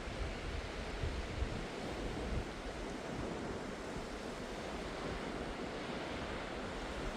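Surf washing onto a sandy beach as a steady rush, with gusts of wind rumbling on the microphone during the first couple of seconds.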